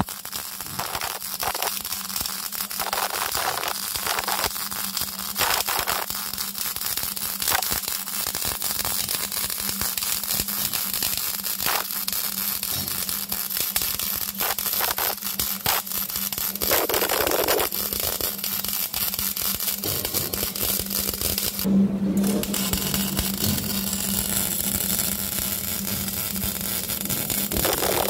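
Electric arc welding on a pipe: a continuous crackling, sizzling arc over a steady low hum. The crackle breaks off briefly about three-quarters of the way through, then resumes.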